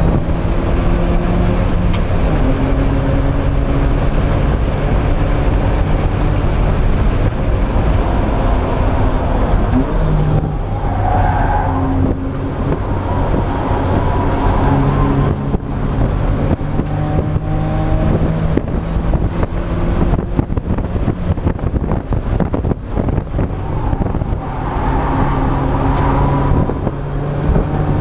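Race car engine heard from inside the stripped, roll-caged cabin, pulling hard under load, rising in pitch and dropping back several times as the driver shifts gears and lifts for corners. Short clicks and rattles come through the cabin from about the middle onward.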